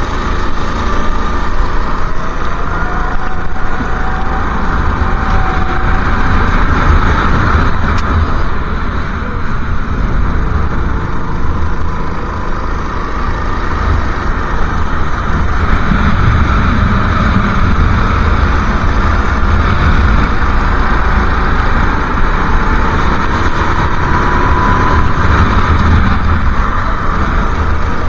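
Go-kart engine running at racing speed, its pitch gently rising and falling with the throttle through the corners, under heavy wind buffeting on the onboard microphone.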